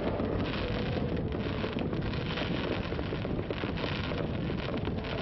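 Steady wind buffeting the microphone on the deck of a passenger ship under way, over a low, even rumble, with no distinct firework bangs.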